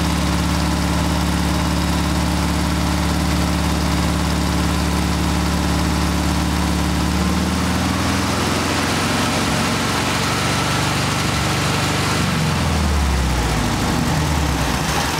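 Air-cooled 36 hp VW flat-four engine running at a high idle near the redline while it drives a 150-amp alternator under a heavy electrical load of over a kilowatt. The engine note is steady at first, then about halfway through it turns unsteady and drops lower as the engine labours.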